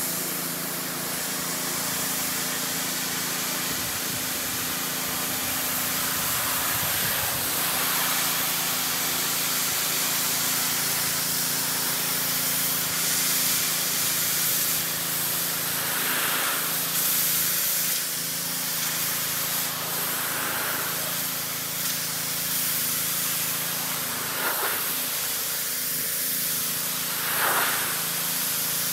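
Pressure washer spraying a steady hissing jet of water against a truck's body to wash off the dirt, with a steady hum under it. The spray swells louder briefly a few times in the second half.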